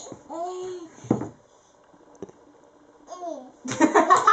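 A baby babbling in short, high, rising-and-falling coos, with a single sharp knock about a second in, a wooden toy block against the floor. Near the end, louder laughter and voices break in.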